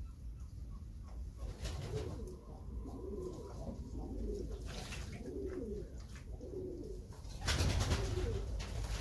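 Domestic pigeons cooing over and over in low, rolling coos. A louder rustling burst comes about seven and a half seconds in.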